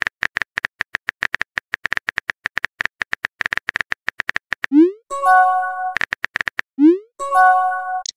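Simulated phone-keyboard typing clicks from a texting-story app, a rapid run of ticks, then a rising whoosh and a short held chime as the message sends. A few more clicks follow, then the whoosh and chime again near the end as a second message sends.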